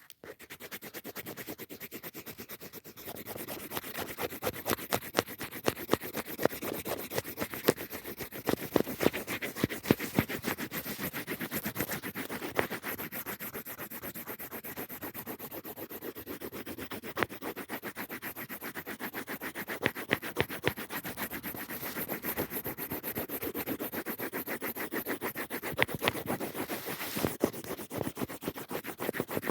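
Coloured pencil scratching back and forth on paper in quick, rapid strokes while colouring in.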